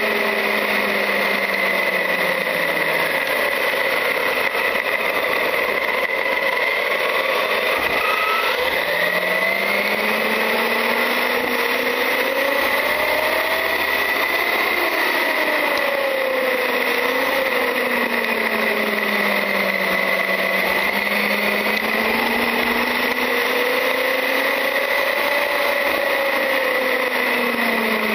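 Traxxas UDR RC truck driving, heard from a camera mounted on the truck. Its brushless electric motor and drivetrain whine, the pitch rising and falling with speed over a steady high tone, with tyre noise from the gravel path underneath.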